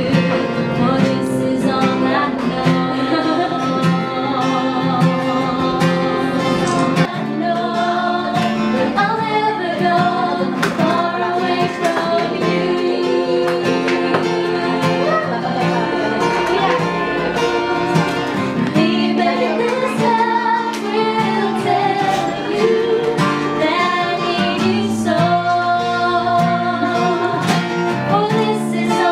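A solo singer performing a love song, accompanied by an acoustic guitar.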